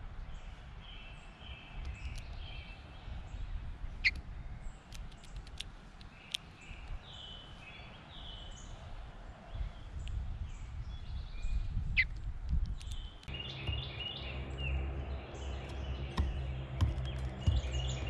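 Wild songbirds chirping in the background with short, repeated notes, over a low rumble, with two sharp taps. Late on, a steady low hum comes in and the chirping gets busier.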